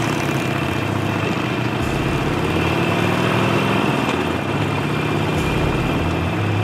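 Motorcycle engine running, its pitch shifting up and down in steps a few times.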